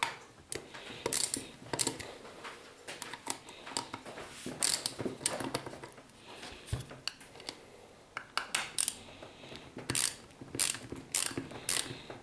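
Plastic gear from an electronic throttle body handled and turned in gloved hands, giving irregular clicks and rattles.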